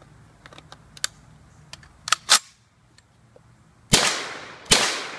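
Saiga-12 semi-automatic shotgun: light metallic clicks, then two sharp clacks as a new feeder goes in and the action is worked, followed by two shots less than a second apart, each ringing out with a long echo.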